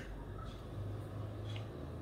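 Faint scraping and a couple of light taps from a wooden spatula against an aluminium baking pan as a slice of frosted cake is lifted out, over a low steady hum.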